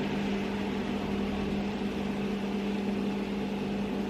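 Banana dumplings frying in hot oil, an even sizzle over a constant low hum.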